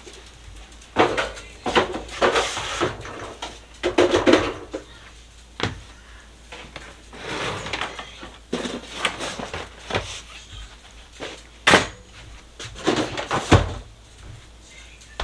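Irregular clatter, knocks and rustling as plastic storage baskets and other clutter are picked up and moved about, with two sharper knocks near the end.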